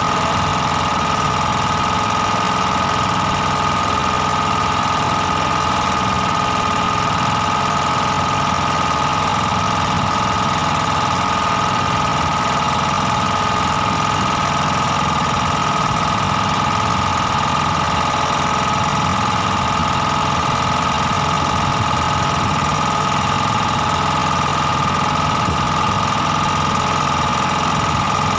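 A small fishing boat's engine running steadily at a constant speed, with a steady high whine over it.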